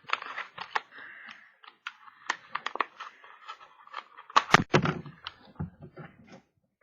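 Stiff plastic blister packaging crackling and clicking as it is handled and pulled open, with a louder cluster of clicks and knocks about four and a half seconds in.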